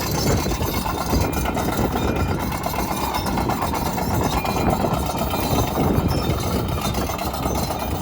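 Kobelco SK210LC-9 excavator's Hino diesel engine running steadily.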